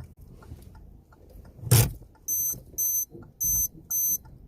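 Inside a parked car with its hazard lights on: the hazard flasher ticks steadily, and from about halfway through, high electronic warning beeps sound in pairs, about one pair a second. One loud thump comes a little before the beeps start.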